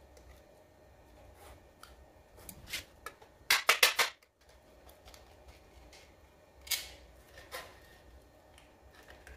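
A small paring knife scraping and prying at the lid of a tin coin bank, working open a stiff lid. Faint scratching runs through, with a quick run of loud, sharp scrapes about three and a half seconds in and two more single scrapes a few seconds later.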